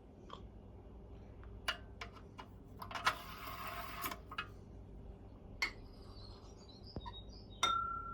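Light clicks and taps from handling a plastic syringe at a toy steam engine's boiler filler, with a hissing squirt of water lasting about a second, about three seconds in. Near the end a click is followed by a brief high squeak.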